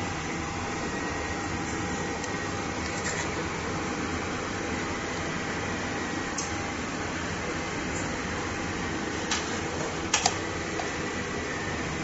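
Steady fan-like hum of workshop equipment. It carries a single small click about nine seconds in and a quick double click just after ten seconds as the flex cable and tester are handled.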